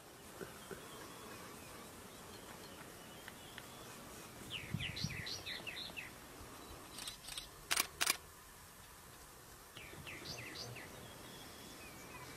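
A bird calling over faint steady background noise: a run of quick chirps about five seconds in and another about ten seconds in. A few sharp clicks come close together about eight seconds in.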